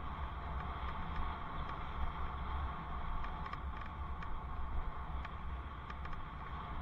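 Wind buffeting a helmet-mounted camera's microphone on a moving bicycle: a steady, heavy rumble with an even rushing noise over it and a few faint ticks.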